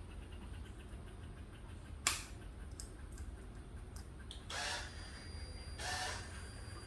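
Handling noises: a single sharp click about two seconds in, then two short scraping rustles about a second apart.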